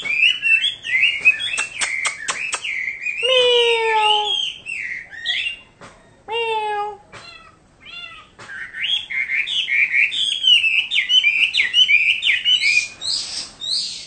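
Caged Chinese hwamei singing a rapid, varied song of whistled phrases. About three seconds in, and again about three seconds later, it gives a long, downward-sliding, meow-like call, its imitation of a cat. The song runs on densely after a short quieter spell.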